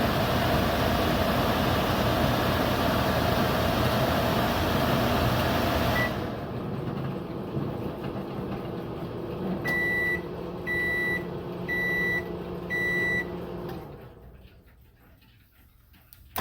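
GE microwave oven running a timed cook cycle, then shutting off about six seconds in with a short blip. A quieter hum keeps going while four beeps about a second apart sound the end of the cycle. The hum then dies away.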